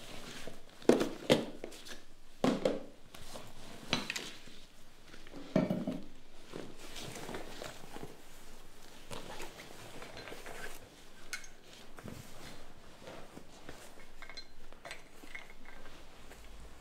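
Hands rummaging in a soft black fabric bag: hard objects inside clink and knock together several times in the first six seconds, then quieter small clicks and rustling follow.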